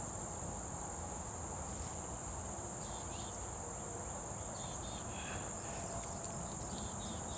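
Steady, high-pitched insect chorus droning without a break, with a few short chirps cutting in now and then.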